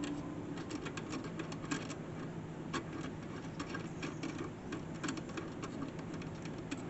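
Light, irregular clicks and taps of small metal parts and hardware being handled while refitting jet-ski pump parts, over a steady low hum.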